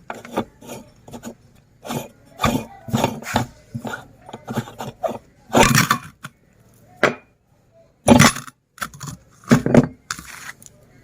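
Electric meat grinder's motor cutting off, then scattered short clinks, scrapes and knocks of handling. The loudest come about halfway through and twice near the end.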